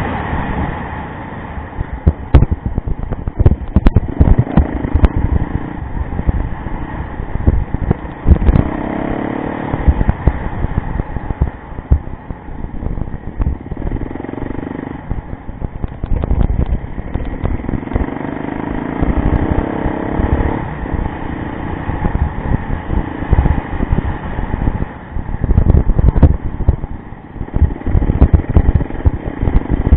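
Yamaha rally motorcycle's engine running under way on a muddy rally stage, its note rising and falling with the throttle, with frequent sharp knocks and clatter.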